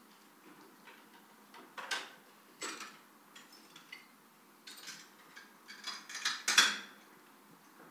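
Footsteps and a rake knocking and scraping over loose broken boards and plaster debris on a floor: scattered irregular clatters, busier towards the end, with the loudest knock about six and a half seconds in.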